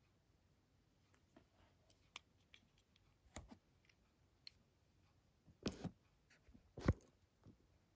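Small plastic clicks and taps from handling a miniature plastic model truck and its packaging, a few light ones scattered early and two louder knocks in the second half.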